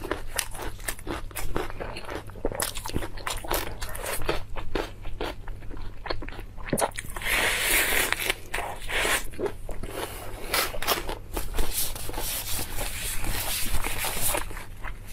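Crisp lettuce leaf crackling as it is folded in the hands, then bitten into with a loud crunch about seven seconds in, followed by crunchy chewing, close to a clip-on microphone.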